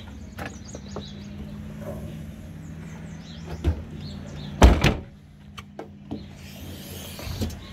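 Rear liftgate of a Chevrolet Suburban being shut: a small knock, then one loud slam about a second later, followed by a few light clicks.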